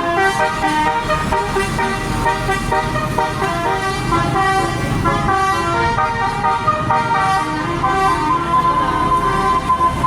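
Basuri telolet horn on a bus playing a melody, several horn notes stepping from pitch to pitch without a break, over a low engine rumble.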